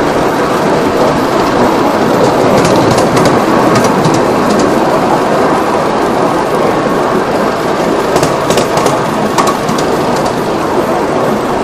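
Miniature live-steam ride-on train running along its track, heard from a passenger car: a steady rumble of wheels on the rails with scattered light clicks.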